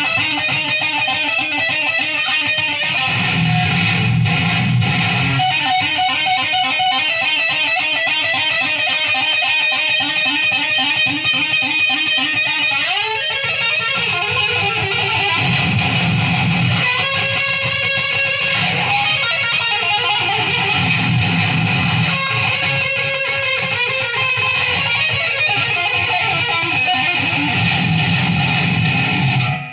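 Guitar playing continuously, with notes sliding upward in pitch about halfway through.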